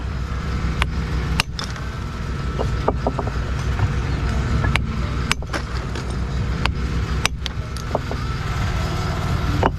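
Steady low engine rumble, with a dozen or so sharp, irregularly spaced knocks of building stone being handled and dressed for a wall corner.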